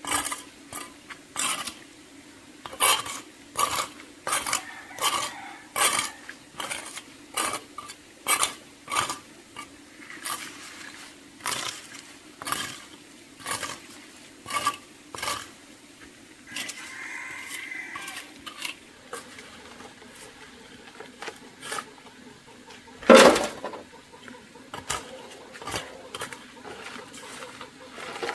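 Repeated sharp clinks and knocks, about one or two a second, thinning out after about sixteen seconds, with one much heavier knock about twenty-three seconds in.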